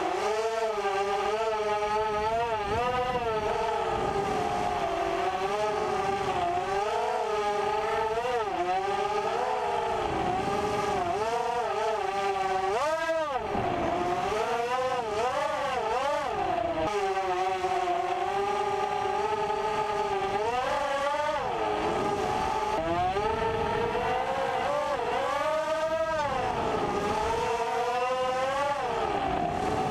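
FPV racing quadcopter's Cobra 2300KV brushless motors spinning 5045 bullnose propellers, heard close from the onboard camera: a whine whose pitch rises and falls with every throttle change. There are sharp upward swoops about halfway through and twice more near the end.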